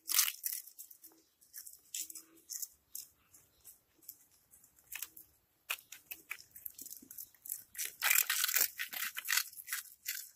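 Cats crunching red puffed snack balls, giving quick, irregular crisp crunches and crackles. They are sparse through the middle and come thick and fast near the end.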